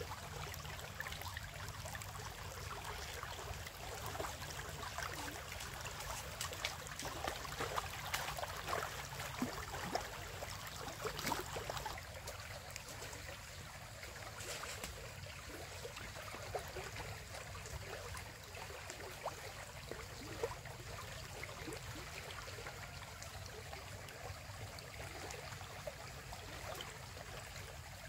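Running water, with scattered small clicks and taps over it that are busier in the first half.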